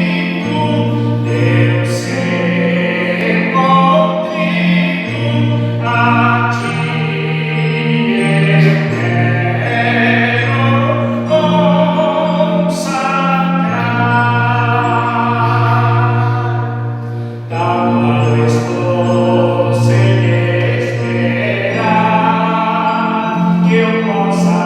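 Music: slow, sustained chords over long held bass notes that change every few seconds, with a cymbal-like crash four times.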